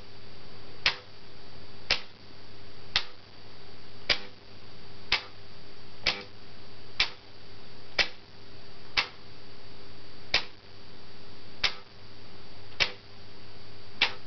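Remote-controlled LEGO train track switch clicking sharply about once a second as it is thrown back and forth from its push-button control box.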